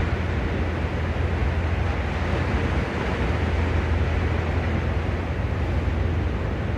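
Sea surf washing steadily on the shore, under a constant low rumble.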